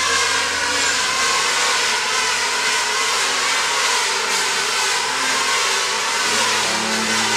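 Handheld power tool running steadily under load as it mills angelique hardwood timber: a loud, even hiss with a slightly wavering whine.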